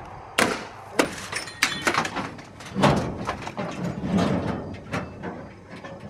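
Irregular knocks and clatters of scrap being shifted and handled in a metal dumpster, with rustling in between.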